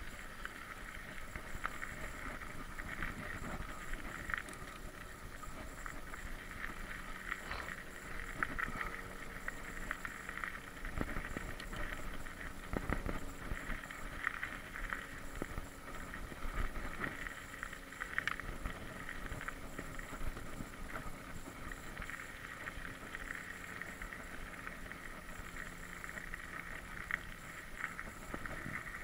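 Mountain bike rolling over a dirt trail: steady tyre and rattle noise, broken by occasional knocks from bumps.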